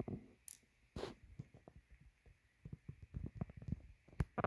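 Small plastic model-kit parts being handled and set down on a marble tabletop: a scatter of light, irregular clicks and taps, with louder knocks about a second in and near the end.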